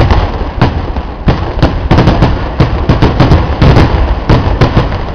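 Pooram temple-festival fireworks: a rapid, irregular string of loud firework explosions, about two or three a second, over a continuous low rumble of further blasts.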